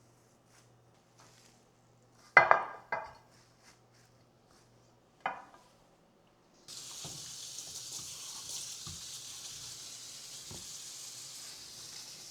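Kitchenware clinking three times, sharp knocks with a short ring, then a steady high hiss that starts suddenly about halfway through.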